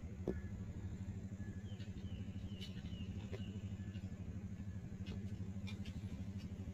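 An engine idling steadily with a low, even rumble. Faint high chirps come in around the middle, along with a few light clicks.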